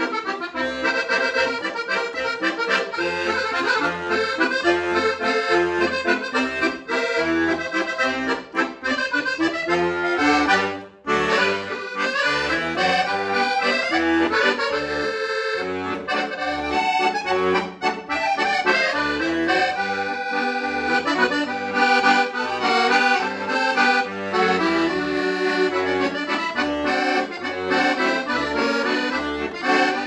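Orlandoni 120-bass piano accordion playing a tune: a melody on the right-hand keys over a steady, even rhythm of bass notes. The music breaks off briefly about eleven seconds in.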